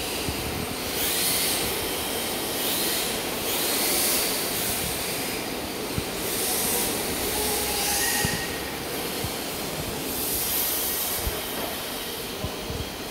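Radio-controlled model cars running on a smooth indoor track: their tyres hiss and squeal against the floor in repeated surges as they slide through the corners, over a faint motor whine that rises and falls.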